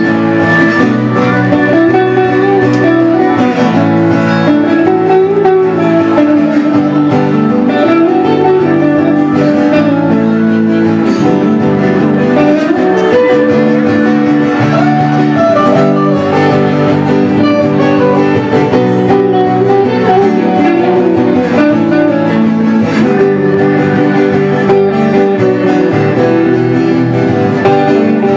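Live band music with no singing: acoustic guitar strumming under an electric guitar playing a lead line whose notes bend and slide in pitch.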